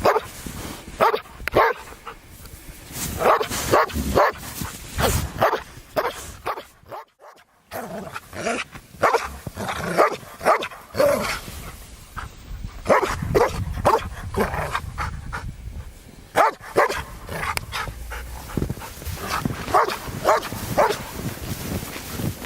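A dog barking over and over in short barks, with a short break about seven seconds in.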